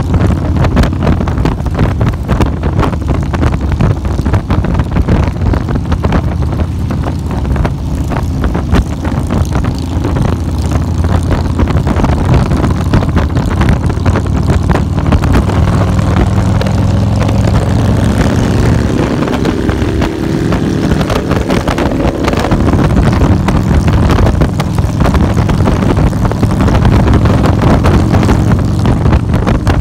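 Motorcycle engine running at road speed, heard from the bike itself under heavy wind buffeting on the microphone. About halfway through, the engine note climbs for several seconds as the bike speeds up.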